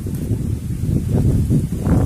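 Low rumbling, buffeting noise on the microphone, loud and continuous, with a rough crackle to it, as the camera is carried through the undergrowth.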